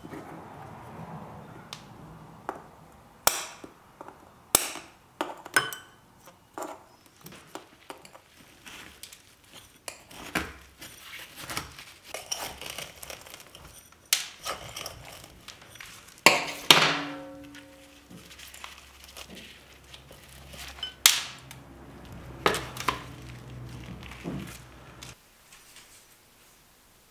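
Metal tools clinking and knocking against a glazed ceramic bonsai pot, with scraping and crumbling in the soil, as a juniper's root ball is pried loose from the pot. The clicks come irregularly, the loudest about two-thirds of the way in with a brief ring after it.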